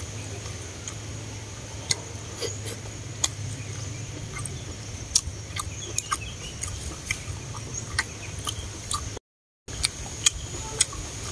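Close-up eating sounds: chewing and mouth smacks with scattered sharp clicks of wooden chopsticks against a plastic dish, over a steady low hum and a thin high-pitched whine. The sound cuts out briefly twice, about a second before the start and about nine seconds in.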